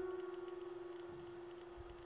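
Background piano music: one held note fading away slowly, with no new note struck.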